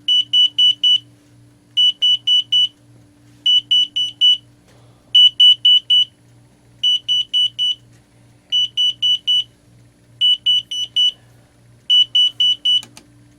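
Yostyle alarm clock's alarm going off: outrageously loud, ear-piercing high-pitched beeps in quick groups of four, a group about every second and a half. The beeping stops with a click near the end.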